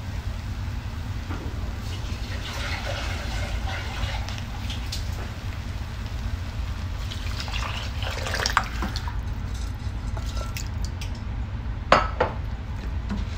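Water poured into a stainless steel pot of rice and toasted vermicelli, with a wooden spoon stirring it; a sharp knock of the spoon against the pot near the end. A steady low hum runs underneath.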